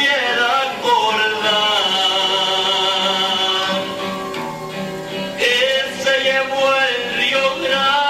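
Recorded Spanish-language corrido: a man singing a slow melody with long held notes, with guitar accompaniment.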